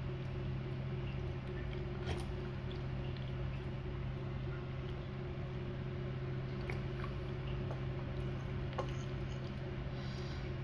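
Eating boiled instant noodles with egg from a ceramic bowl: a few faint clicks of a metal spoon and soft wet eating sounds over a steady low hum.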